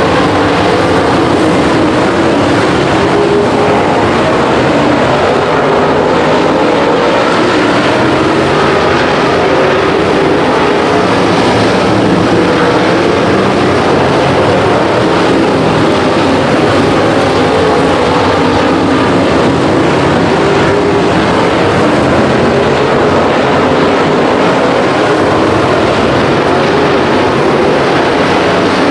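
A field of race cars running at speed together: several engines at high revs, loud and unbroken, their pitches overlapping and rising and falling as drivers lift and get back on the throttle.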